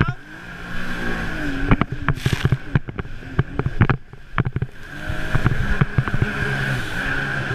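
Sea-Doo jet ski engine running under way, its pitch rising and falling as the throttle changes, with many sharp knocks and splashes as the hull slaps across the water.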